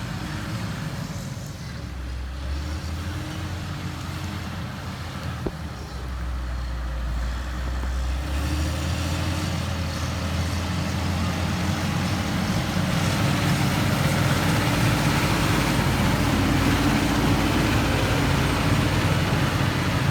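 Heavy construction machine's diesel engine running steadily with a deep rumble, growing louder partway through.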